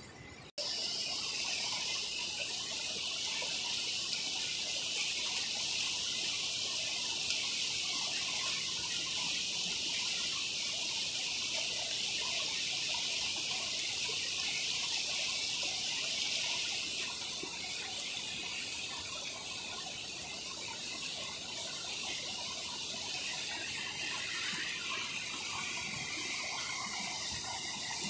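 Floodwater rushing and churning in a swollen creek, pouring over a weir and down a rocky cascading waterfall: a steady rush of water, with a brief break about half a second in.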